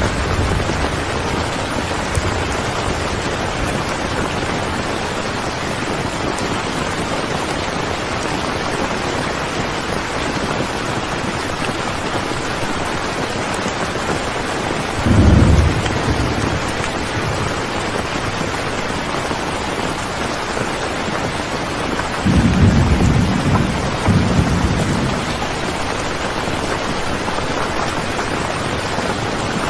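Steady rain falling, with a short low rumble of thunder about halfway through and a longer one some seconds later.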